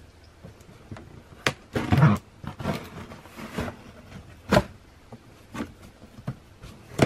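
A cardboard shipping box being handled and opened: cardboard scraping and rustling in short stretches, with a couple of sharp knocks.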